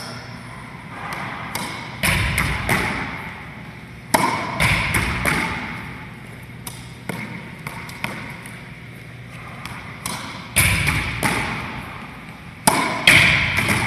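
Racquetball ceiling shots: the ball smacked with a racquet and rebounding off the ceiling, front wall and hardwood floor of an enclosed court, several sharp hits in clusters, each followed by a long echo.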